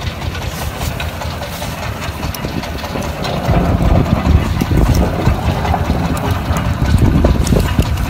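Fishing boat's engine running at idle, a steady low rumble that grows louder about three and a half seconds in, with scattered small clicks of shell and rope being handled.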